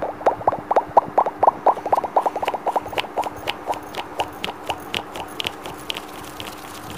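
Rapid finger tapping close to a small clip-on microphone, about five taps a second. The taps are lower-pitched at first, turn to sharper, higher clicks a couple of seconds in, and thin out near the end.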